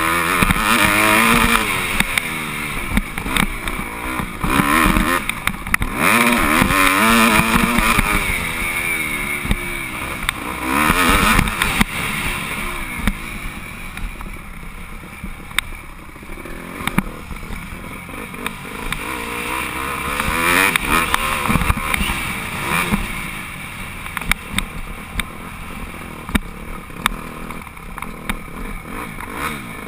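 Dirt bike engine revving up and down through the gears while being ridden, heard from the rider's helmet camera. It runs hard with repeated rising pitch for the first dozen seconds, drops to a quieter run, surges again about two-thirds through, then eases off toward the end.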